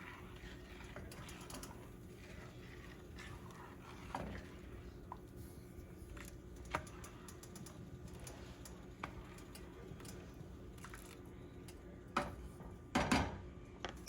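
Scattered light clicks and taps of kitchen utensils, a few louder knocks and clatter near the end, over a low steady hum.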